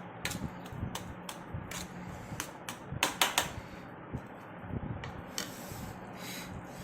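Close-miked eating sounds from a mukbang: a string of short, sharp wet clicks and smacks, with a quick, loudest cluster about three seconds in.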